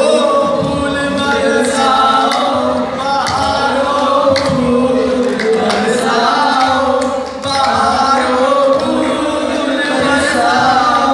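A group of male voices singing a qawwali into microphones, with hand-clapping keeping time.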